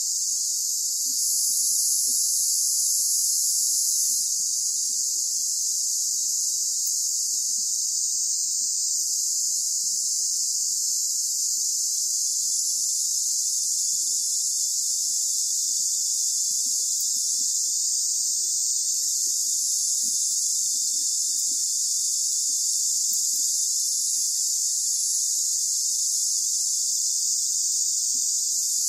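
Steady, shrill chorus of insects singing without a break.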